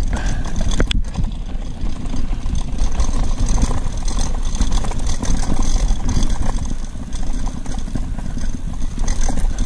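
Wind rushing over the microphone during a fast bicycle ride, with the bike rattling and clattering over rough ground and a sharp knock about a second in.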